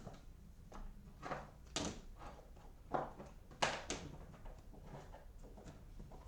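Fidget toys and a storage bin being handled and rummaged through: irregular knocks, clatters and rustles, a few of them louder.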